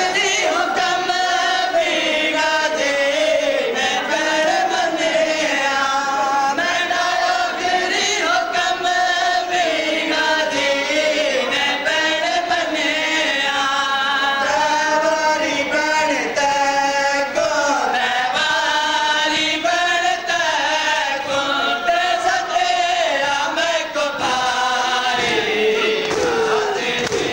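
Group of men chanting a Punjabi noha (Muharram lament) together as a melodic chorus, with rhythmic chest-beating (matam) faintly beneath.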